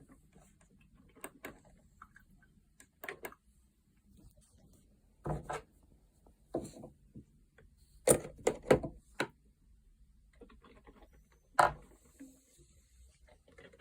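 Irregular clicks and knocks of hard objects being handled, with a cluster of louder knocks about eight seconds in and a single sharp knock a few seconds later.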